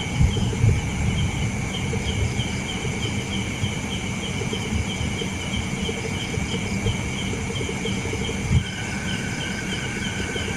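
Night chorus of insects: several steady high-pitched trills and a fast pulsing chirp, over a low rumbling noise. Another steady, lower trill joins about eight and a half seconds in, along with a brief thump.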